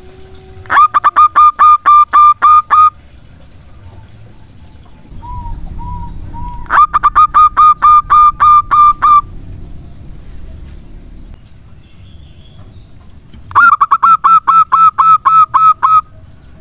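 Zebra dove cooing: three bouts of rapid, evenly repeated staccato notes, each bout about two seconds long.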